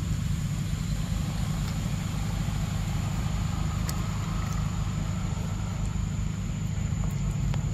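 Steady low rumble with a constant faint high-pitched whine above it, and a few soft clicks.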